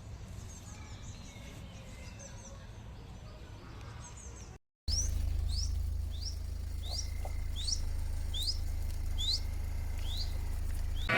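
Small birds chirping: faint high chirps at first, then after a brief break a bird repeating a short sweeping chirp about once every 0.7 s over a low steady rumble.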